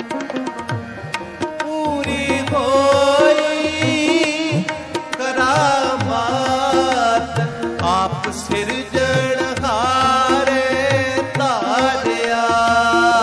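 Shabad kirtan: tabla playing a steady rhythm under held drone-like tones, with a voice singing an ornamented devotional melody that enters about two seconds in.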